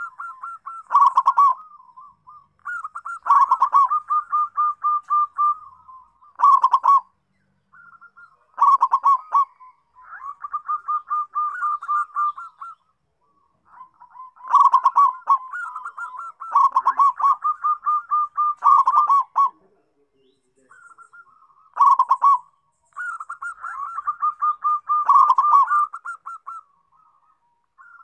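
Zebra dove (perkutut) singing: repeated phrases of rapid staccato cooing notes, each ending in a louder, lower coo, with a new phrase every second or two.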